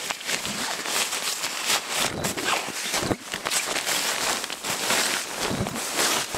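Close rustling and crinkling of nylon sleeping-bag and tent fabric as someone moves about inside a small tent, with scattered soft knocks.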